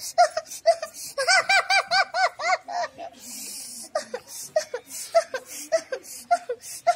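A boy's rhythmic, breathy grunts and hoots, about three a second, imitating the panting vocal outbursts of a person possessed by a deity in a trance. About a second in they quicken into a run of pitched hoots, and around three seconds in comes a long hissing exhale.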